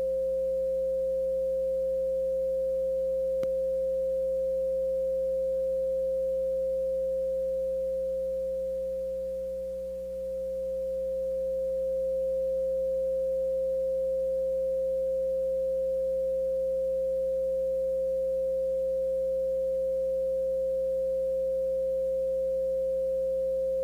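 A single steady, mid-pitched pure electronic tone, held unbroken, that softens slightly for a moment partway through. There is a faint click early on.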